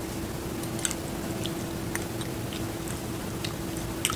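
A metal fork and spoon stirring noodle soup in a ceramic bowl: soft wet squishing with scattered light clinks at irregular moments, over a steady low hum.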